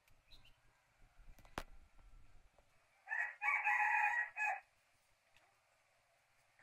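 A rooster crows once, a single call of about a second and a half starting a little after three seconds in. A single sharp tap comes earlier.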